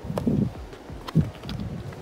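Wind buffeting the microphone in low, irregular rumbles, with two sharp thumps about a second apart.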